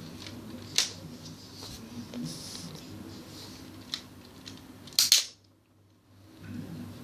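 Plastic clicks and snaps from a Lego blowback rifle's mechanism: a sharp click just under a second in, a fainter one about four seconds in, and a loud double snap about five seconds in, over a steady low hum.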